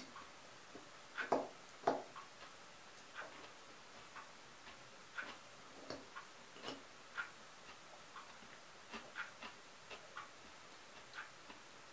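Metal fork clinking and scraping against a ceramic bowl while eating salad, in irregular short clicks; the two loudest come about a second and a half to two seconds in.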